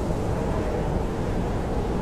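Blizzard wind howling around a camping tent: a steady deep roar with a faint wavering moan running through it.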